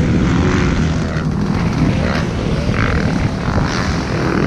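Wind buffeting the camera's microphone in a steady, rough low rumble, with a dirt bike's engine faintly rising and falling in the distance.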